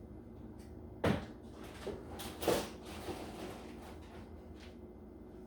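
Handling clunks from clearing out a fridge: two louder knocks about a second and a half apart, with a couple of lighter knocks between and after, as items are moved and set down.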